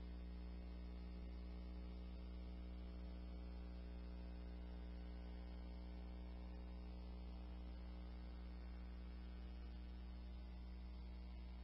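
Faint steady electrical hum with a stack of even overtones, unchanging throughout: mains hum in the recording.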